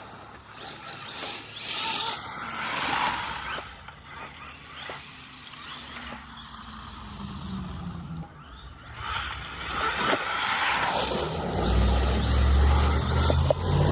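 Large-scale Arma Mojave EXB RC truck driving hard on loose gravel: its electric motor whines up and down with the throttle while the tyres crunch and throw gravel in repeated swells. About twelve seconds in, a low steady hum comes in and becomes the loudest sound.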